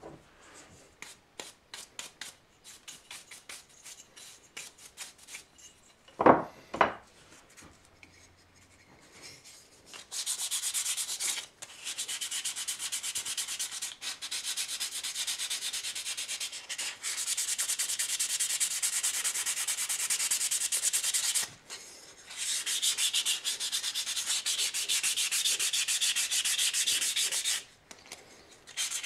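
Sandpaper sanding spalted taraire wood. It starts as short separate strokes, then runs as long continuous stretches of sanding from about ten seconds in, with brief pauses. Two loud short sounds come about six seconds in.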